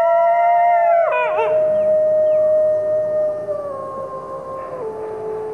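Red wolves howling in chorus, several long held notes sounding at once. About a second in, some voices waver and drop away, leaving one long howl that slowly falls in pitch and steps lower near the end.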